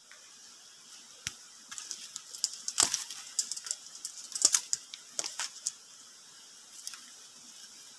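Dry leaves and twigs crackling and snapping underfoot as a person moves through forest undergrowth, in irregular sharp clicks that bunch up in the middle and thin out near the end.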